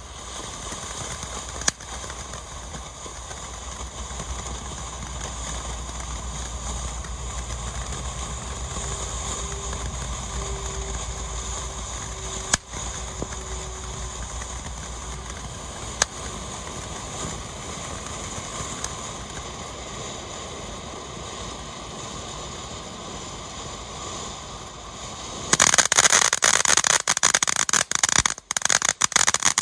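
Nico Funky Monkey ground fountain firework burning with a steady hiss and a few single sharp pops. Near the end it breaks into loud, dense crackling.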